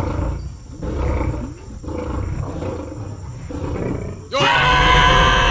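Leopards growling and snarling in rough, uneven bursts. About four seconds in, a sudden loud, sustained blaring chord cuts in as an action sound effect.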